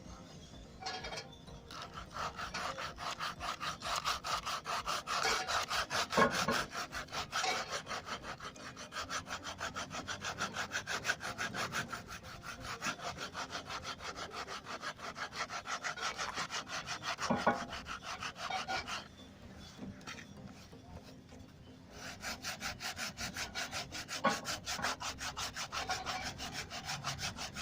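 A hand tool worked back and forth in rapid strokes, about four a second, rubbing or rasping against the dashboard. The strokes stop for about three seconds about two-thirds through, then resume.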